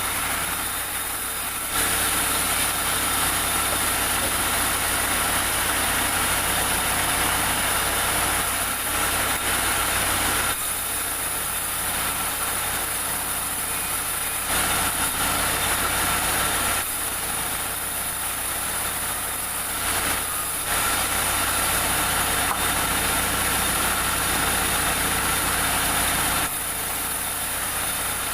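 Sawmill machinery running steadily, growing louder and quieter in stretches of a few seconds.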